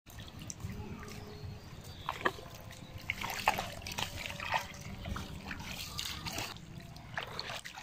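Bare feet squelching and splashing in wet mud and shallow water, a scatter of short wet steps.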